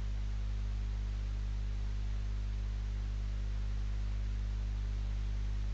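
Steady low electrical hum with a constant hiss, unchanging throughout: the background noise of the recording chain with no speech.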